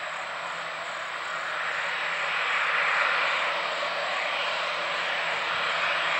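Boeing 737-800's CFM56-7B turbofan engines running at taxi power, a steady jet rush that grows louder about halfway through as the airliner rolls toward its takeoff position.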